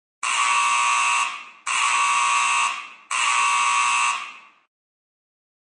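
Emergency Alert System end-of-message data tones: three loud, buzzy electronic bursts of about a second each, close together, each trailing off briefly. They mark the end of the broadcast warning.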